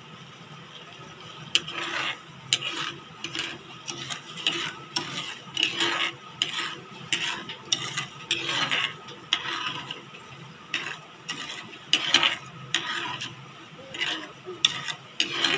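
Steel ladle stirring sugar and water in a metal pan, scraping and clinking against the pan's bottom and sides in quick, irregular strokes, starting about a second and a half in. The sugar is being dissolved over low heat into syrup.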